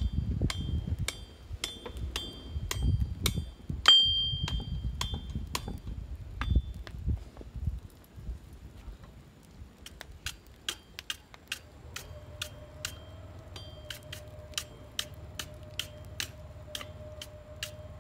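Hammer striking a steel anvil at about two blows a second, each blow ringing out at the same bright pitch, with a short pause about eight seconds in. A steady hum joins about twelve seconds in.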